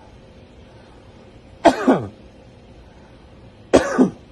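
A man coughing deliberately twice, about a second and a half in and again near the end. Each cough is a quick double hack that drops in pitch. These are the deep coughs of the proning maneuver, done to move secretions out of the lungs.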